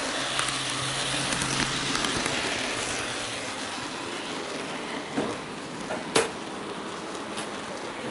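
N-gauge model train with the onboard camera car rolling along the track, a steady close-up rattle of the small wheels on the rails with a faint motor hum. It is louder for the first few seconds and then eases, with a few sharp clicks about five and six seconds in.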